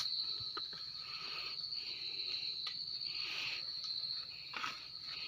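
Insects trilling steadily at one high pitch, with a few soft rustles and clicks.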